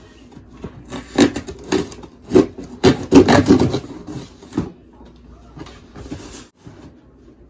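Cardboard shipping box being handled and picked open at a corner: a run of irregular scraping, rubbing and crackling noises, loudest around the middle, then dying down to faint handling.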